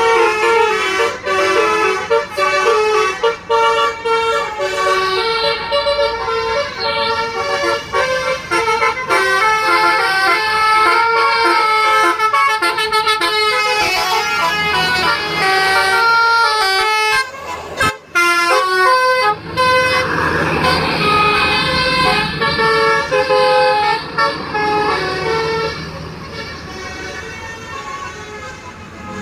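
A bus's multi-trumpet musical air horn (basuri, 'telolet') playing a quick tune of stepped notes. It breaks off briefly past the middle, then sounds again over the bus's engine and road noise, fading toward the end.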